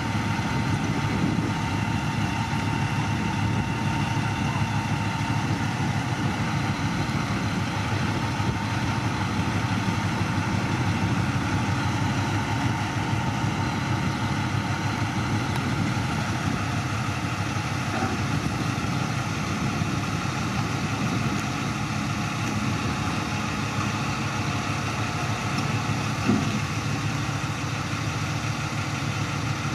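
Crane truck's diesel engine idling steadily, with a single short knock near the end.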